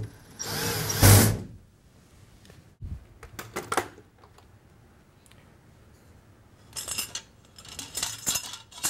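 Cordless drill briefly driving a screw into the metal mounting plate, the loudest sound, stopping after about a second. Then scattered metal clicks and clinks as the chandelier's chain is hooked onto the ceiling bracket, most of them near the end.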